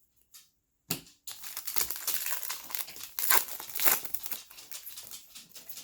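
Plastic wrapper of a trading-card pack crinkling and tearing as it is opened and handled, in a dense run of irregular crackles that begins about a second in.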